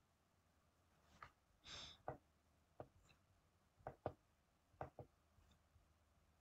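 Faint computer mouse clicks, about seven sharp clicks, a few in quick pairs, with a brief soft rustle just before two seconds in.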